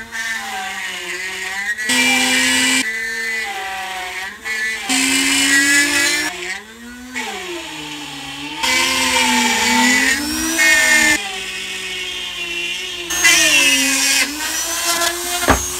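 Dremel rotary tool with a circle-cutter attachment whining as it cuts a round hole through drywall, its pitch wavering up and down as the bit loads and frees. A sharp click near the end.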